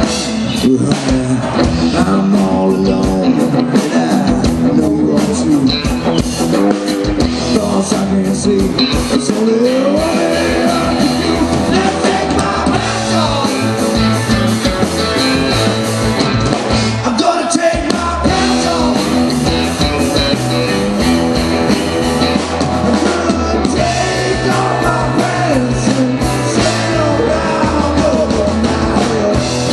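Live rock band playing: electric guitars over a drum kit, with sung vocals.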